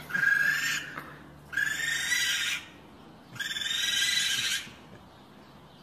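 Raccoons in a tree hollow calling: three high-pitched calls of about a second each, roughly a second apart.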